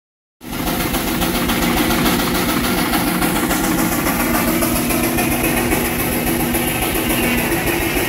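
Frick 8x10 steam traction engine running steadily under belt, driving a sawmill, with a constant mechanical hum. The sound starts abruptly about half a second in.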